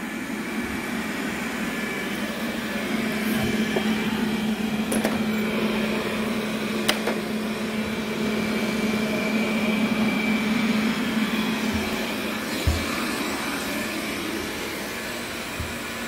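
Robot vacuum cleaner running close by: a steady motor and brush hum, with a few brief clicks.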